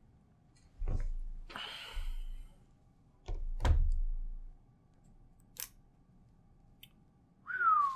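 Handling a new laptop out of its packaging: a couple of dull knocks, a short rustle, two heavier knocks, then a sharp click. A brief falling squeak comes near the end.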